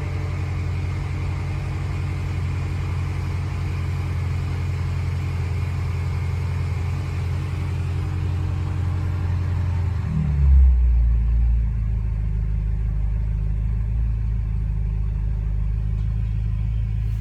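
2014 BMW M5's twin-turbo V8 engine running with a misfire, a steady low drone. About ten seconds in it briefly swells, then settles into a deeper, more muffled running.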